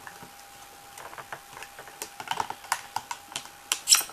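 Hard plastic clamshell packaging being cut and pried open with a knife: small irregular clicks and crackles of stiff plastic, coming closer together and louder near the end.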